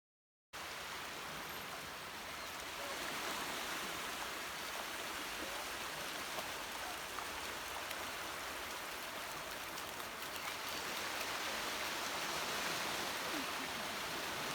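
Steady rushing and splashing of water, starting abruptly about half a second in.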